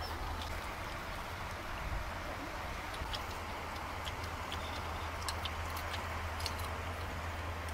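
Steady background noise and low hum, with faint light ticks scattered through.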